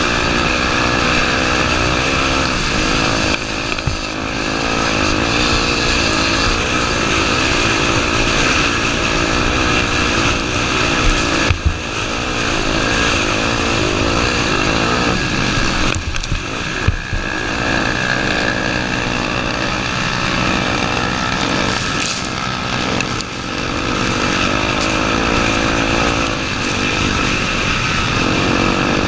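Honda Tornado 250's single-cylinder four-stroke engine running as the dirt bike is ridden, its pitch rising and falling with the throttle. A few sharp knocks come about eleven and about sixteen seconds in.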